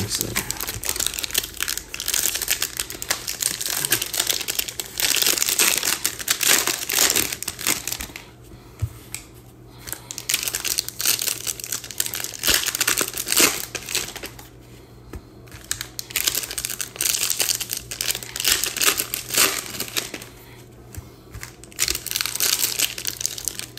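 Plastic wrapping on trading card boxes being handled by hand, crinkling and tearing in bursts with short pauses between them.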